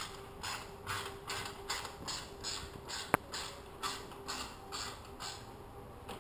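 Repeated short rasping, creaking strokes, about two or three a second, from hand work at an engine on a dyno stand. They stop about five seconds in. A single sharp click sounds near the middle, over a steady faint hum.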